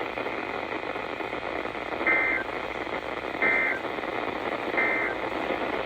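NOAA Weather Radio EAS end-of-message data tones: three short warbling two-tone bursts about 1.4 seconds apart over steady radio static, signalling the end of the severe thunderstorm warning.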